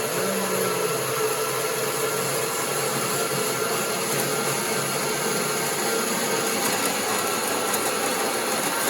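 Bauer 10-amp variable-speed portable band saw running on speed 2, its blade cutting through 16-gauge mild steel plate. The motor and blade keep up a steady, even whine.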